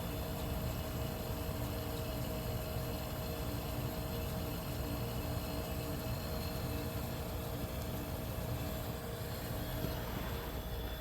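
A 1973 Westinghouse 25-pint dehumidifier running: the steady hum of its R12 compressor under the even whir of its fan, with a few steady tones over it.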